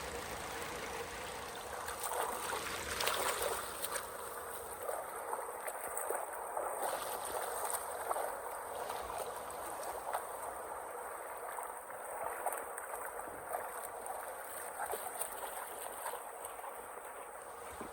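Water running steadily, with small irregular splashes.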